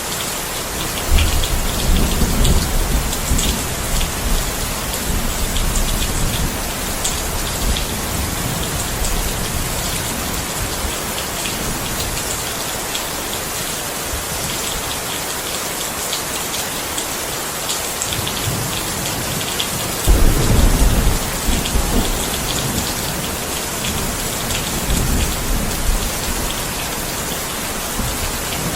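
Steady rain falling, with low rolls of thunder rumbling about a second in and again, louder, about twenty seconds in.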